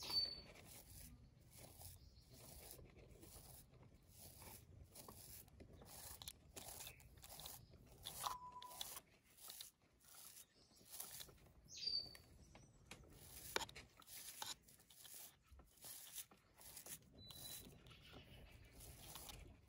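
A toothbrush brushing through a young hedgehog's spines: faint, scratchy strokes repeating a few times a second, with short pauses between runs.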